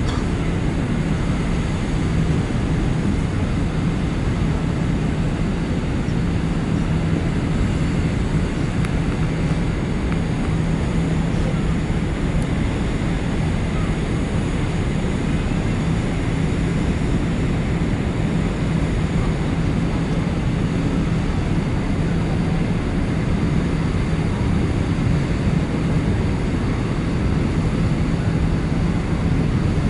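Steady low drone of the ferry Shin Ishikari under way: an even rumble with a constant hum from the ship's engines.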